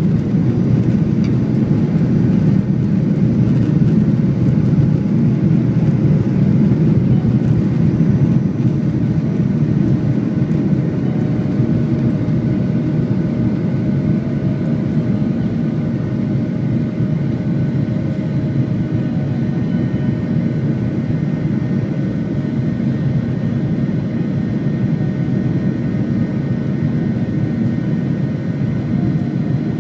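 Airliner's jet engines at takeoff thrust heard from inside the passenger cabin through the takeoff roll and climb-out: a loud, steady, deep noise with faint high engine tones above it.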